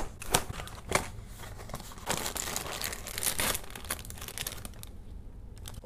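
A cereal box being opened: a few sharp snaps as the cardboard top is pulled open, then the plastic inner bag crinkling and tearing, densest about two to three and a half seconds in and thinning out after.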